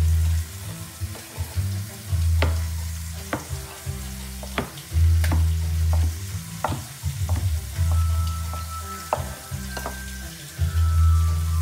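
Kitchen knife chopping raw bacon on a wooden cutting board: a string of sharp knocks, about one or two a second. Under it runs background music with a heavy, pulsing bass.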